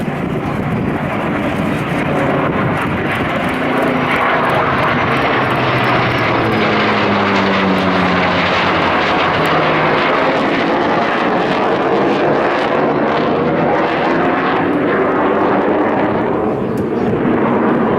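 F/A-18 Super Hornet's twin jet engines roaring through a low pass, with the pitch falling as the aircraft goes by about midway.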